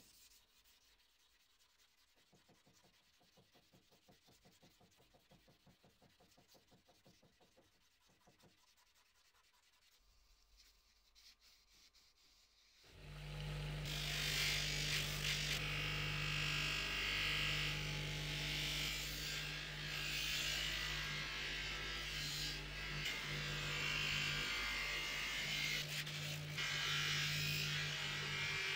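Knife blade being wet-sanded by hand, a quiet rhythmic rubbing of sandpaper strokes. About halfway through, a power polishing tool starts up and runs loud and steady, a constant hum under a strong hiss, as it polishes the blade.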